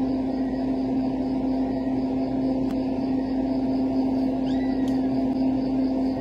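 Steady low machine hum, with a single sharp click a little before the middle and a brief high peeping call from a chick about four and a half seconds in.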